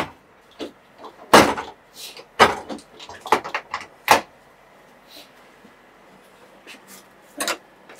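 Thermo King reefer unit's front access doors being pushed shut and latched: a run of sharp knocks and latch clicks over the first four seconds, three of them loud, then one more knock near the end.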